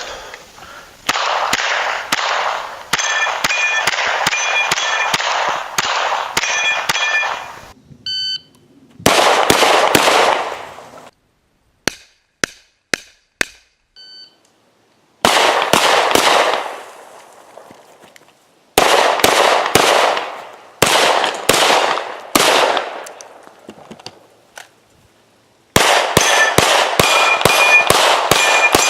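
Rapid gunfire from a shotgun and a Glock 17 pistol in several quick strings of shots, with hits on steel targets ringing out over the shots.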